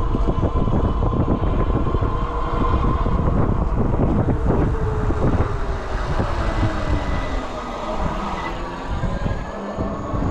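Wind buffeting the microphone and tyre noise of an e-bike rolling along a paved street, with a faint electric motor whine that falls in pitch through the middle as the bike slows.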